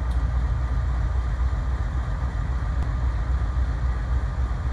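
CSX diesel-electric locomotive idling while the train stands stopped: a steady, loud, low engine rumble with a faint steady hum above it.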